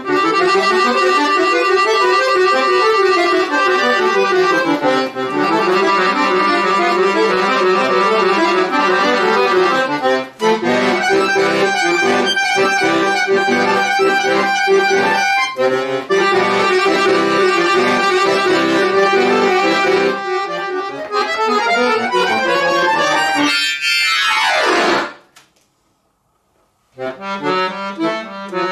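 Chromatic button accordion playing a solo piece: full, sustained chords and running lines. Near the end a fast run sweeps down from high to low and stops, and after a pause of about two seconds the playing resumes with quick, repeated chords.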